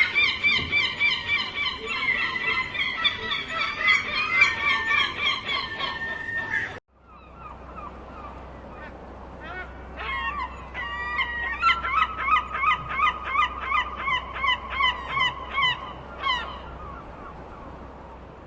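Gulls calling, many harsh cries overlapping. After an abrupt cut about seven seconds in, a gull gives a long run of repeated calls, about three a second, which then fade away.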